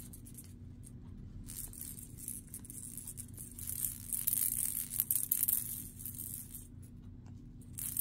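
Plastic cage-ball rattle toy being shaken, the loose ball inside clattering against the plastic bars in a fast, dense rattle. It starts about a second and a half in, is loudest in the middle and dies down near the end, over a steady low hum.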